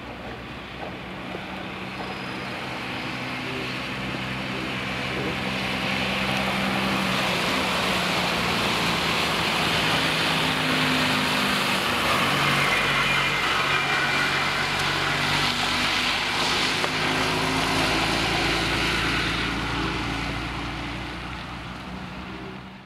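A two-wheeler's engine and a bus engine approaching and passing, with tyre hiss on wet tarmac. The sound builds steadily, is loudest through the middle with a deep engine rumble coming in just past halfway, and fades near the end.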